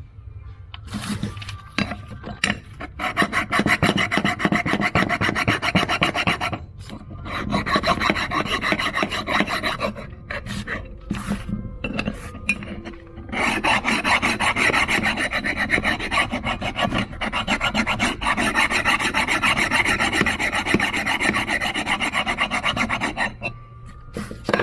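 A metal file rasping across the base flange of a Holley 94 carburetor, flattening the warped mounting surface for the gasket. It goes in several runs of rapid strokes broken by short pauses, and stops shortly before the end.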